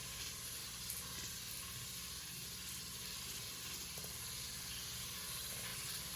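Baking soda and vinegar fizzing inside a model volcano: a steady, faint hiss of bubbling foam.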